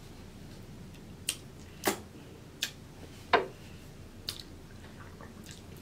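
Wet mouth pops and smacks as cheese sauce is sucked off fingers, about five in a few seconds. Two of them slide quickly downward as the finger leaves the lips.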